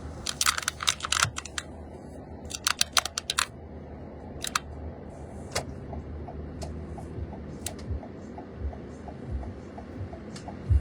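A series of sharp clicks and taps, bunched in the first few seconds, over a low steady rumble inside a car. From about halfway through, a faint regular ticking runs about two to three times a second.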